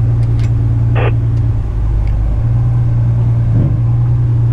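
Loaded heavy rigid tipper truck's diesel engine droning steadily, heard from inside the cab, with a short click about a second in.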